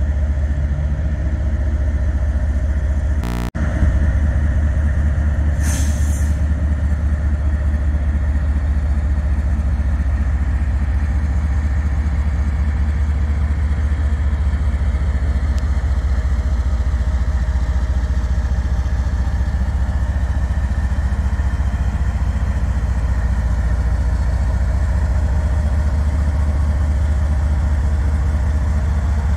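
Diesel locomotive engine running steadily, a loud low rumble with a fast, even pulse. There is a short hiss about six seconds in.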